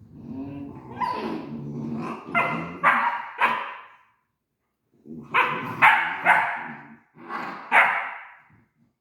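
Great Dane barking: low pitched grumbling that builds into three sharp barks, a brief silence, then four more barks.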